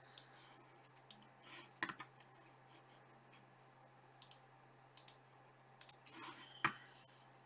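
Scattered clicks from a computer mouse and keyboard, about half a dozen over several seconds, the sharpest one near the end, over a faint steady low hum.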